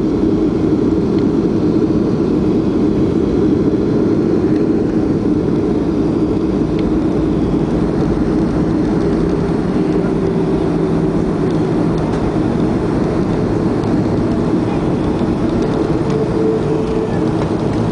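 Steady rumble inside the cabin of a Boeing 737-300 rolling out on the runway after landing, from its engines and wheels. A faint hum comes and goes partway through.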